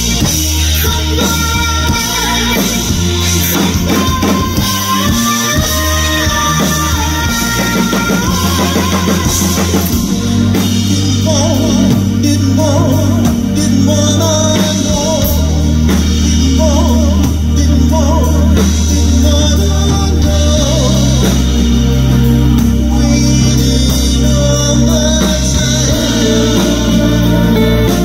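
Live rock band playing loudly: drum kit, bass notes held and changing every few seconds, guitar, and a man singing into a microphone.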